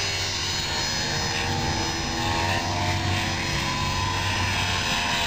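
Radio-controlled model helicopter in flight overhead, its motor and rotors making a steady whine whose pitch drifts slowly up and down.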